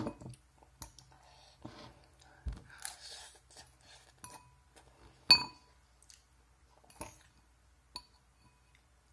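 Utensil clinking and scraping against a ceramic noodle bowl in scattered strikes, the loudest about five seconds in with a short ring. Softer eating noises come in between.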